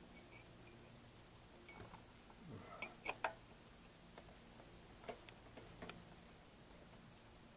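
A few faint, sharp metallic clicks from parts and tools being handled during timing-belt work on an engine. Three come close together about three seconds in and one more about two seconds later, over a low steady hum.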